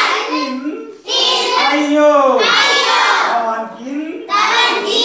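A class of schoolchildren reciting phrases together in sing-song unison, in three loud stretches with short breaks between.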